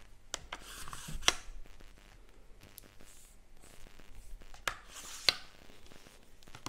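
Carbon fibre tripod legs being worked by hand: leg sections sliding and their locks turned, with scraping and a few sharp clicks, the loudest about a second in.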